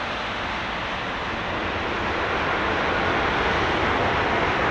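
Airbus A330-300's jet engines and tyres on a wet runway during the landing roll, a steady rush of noise that grows louder from about halfway through.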